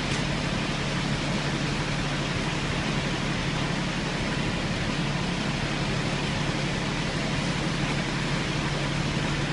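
Concrete pump truck's diesel engine running steadily, a constant low hum under a broad even noise.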